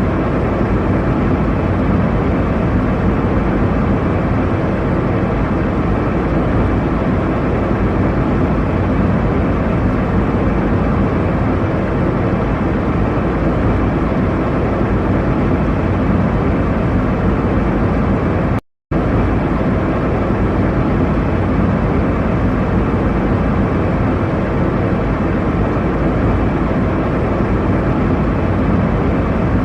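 Steady jet airliner cabin noise in flight: an even, deep rush of engine and airflow. It cuts out for a split second about nineteen seconds in.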